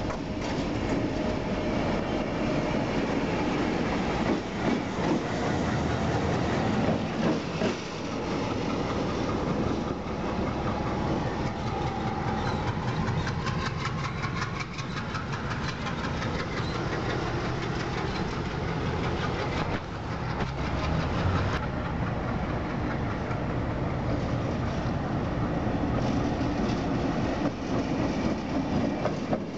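Diesel engine of an OSE MLW MX627 locomotive (A501) running steadily as the locomotive moves slowly along the track. A stretch of rapid, even clicking runs through the middle.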